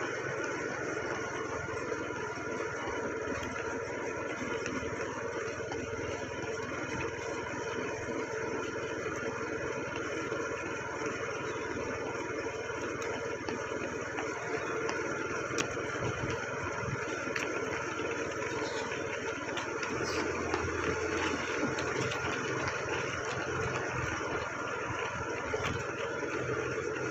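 Engine of a slow-moving vehicle running steadily, an even drone with no change in speed.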